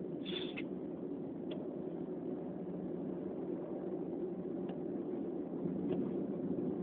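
Steady low background hum, with a brief faint high-pitched sound shortly after the start and a few faint ticks.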